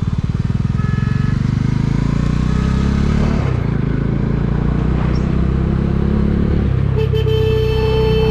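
Bajaj Dominar 400's single-cylinder motorcycle engine running under way, its pitch shifting a couple of times. A vehicle horn sounds for over a second near the end.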